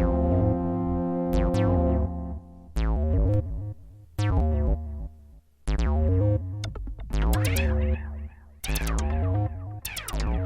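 Studiologic Sledge 2.0 synthesizer multitrack music: a held, bright chord ends about two seconds in, followed by plucked notes with sharp attacks over a deep pulsing bass line, with a brief drop in level near the middle.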